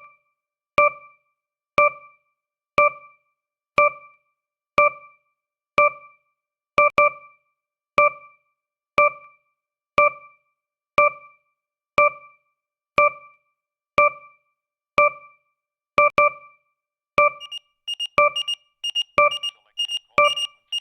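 Countdown timer sound effect: a short electronic note once a second, each fading quickly. In the last few seconds a rapid run of higher beeps joins the ticking, the timer's alert that time is nearly up.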